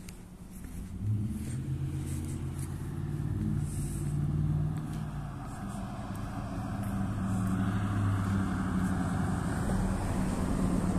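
A car driving past on the road: a low engine hum with tyre noise that swells in the second half.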